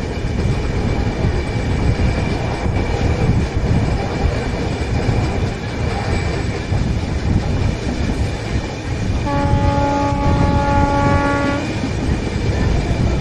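Express train coaches rolling past a platform: a steady loud rumble with wheels clicking over the rail joints. About nine seconds in, a train horn sounds one steady blast of about two seconds.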